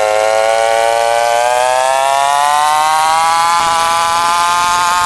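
Small boat engine running under way, its pitch rising steadily as it speeds up, with a slight jump about three and a half seconds in.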